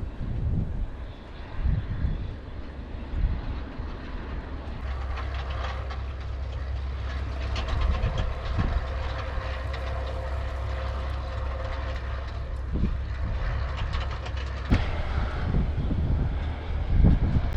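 Farm tractor engine running with a steady low drone, with metallic rattling and clanking over it.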